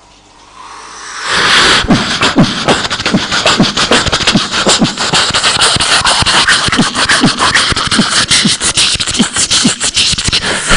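Beatboxing: a fast, steady rhythm of mouth-made kick-drum thumps and crisp hi-hat-like clicks and hisses, starting about a second in.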